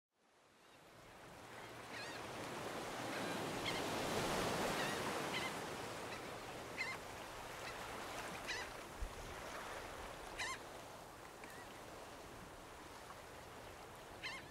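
Seaside ambience sound effect: a steady wash of surf that fades in over the first couple of seconds, with seabirds giving short calls every second or two.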